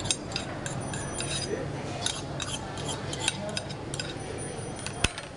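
Metal fork scraping and clinking against a cast-iron sizzling plate: a quick run of short scrapes and clicks, with one sharper clink about five seconds in.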